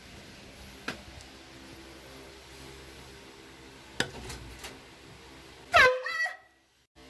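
Air horn blasting once, short and loud, near the end after a stretch of faint room tone with a couple of small knocks; its pitch settles quickly onto one steady note, and the blast cuts off abruptly.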